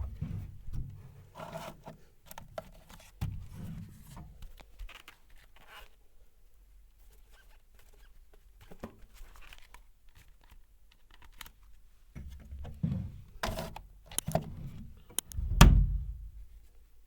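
Hands massaging a head close to the microphone: irregular rubbing and scratching over hair and scalp, broken by dull thumps, the loudest a little before the end.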